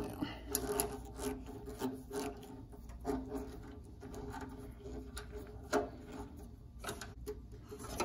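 A self-tapping screw being turned in by hand with a screwdriver into the Bronco's sheet-metal body to fasten the taillight ground wire. Its threads rasp and creak as they cut into the metal, in stretches broken by short clicks.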